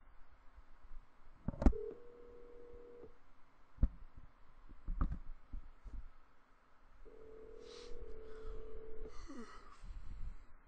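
Telephone ringback tone: a steady purring tone that rings twice, with about four seconds between rings, as the call rings unanswered at the other end. Several handling knocks sound from the phone and the desk, the loudest about two seconds in.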